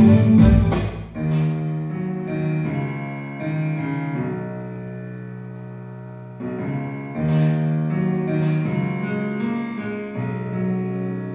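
Instrumental music played through tower loudspeakers and a subwoofer driven by a ZK-1002T Bluetooth amplifier board (TPA3116 class-D) under sound test. A fast strummed passage ends about a second in. Sustained keyboard chords follow, changing every second or two.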